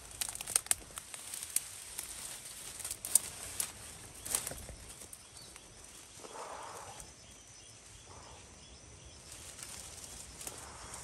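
Dry vines and twigs rustling and cracking as a person pushes into a tangled bush, with a run of sharp snaps in the first few seconds and quieter rustling after.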